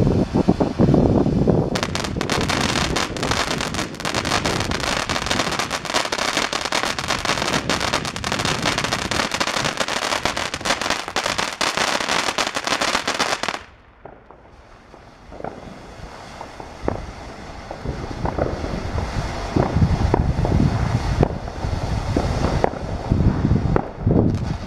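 Humdinger firework fountain burning. It starts as a rushing spray of sparks, then from about two seconds in a dense crackle of popping stars runs for about ten seconds and stops abruptly. After that comes a quieter hissing spray with scattered pops.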